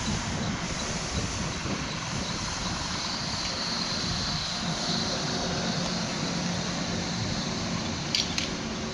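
ICE 4 high-speed electric trainset rolling slowly past, a steady rumble of wheels on rail with a faint high whine in the middle. Two sharp clicks come near the end.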